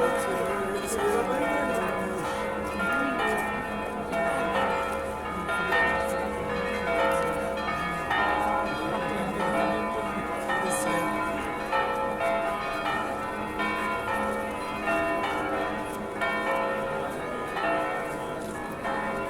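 Church bells of the Catedral da Sé in Belém pealing continuously, many bells struck over and over so their tones overlap.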